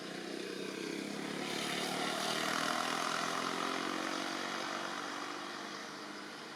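An engine passing by: its sound swells to a peak about two and a half seconds in, then fades away.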